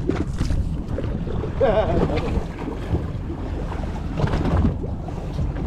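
Wind buffeting the microphone aboard a fishing boat at sea, over a steady low rumble. A brief voice calls out about a second and a half in.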